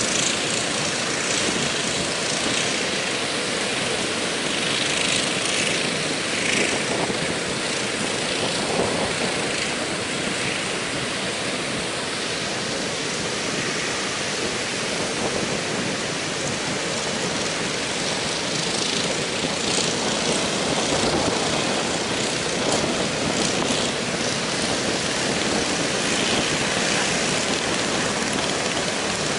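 Heavy surf breaking and washing up the beach in a strong wind: a loud, steady rushing noise with no letup.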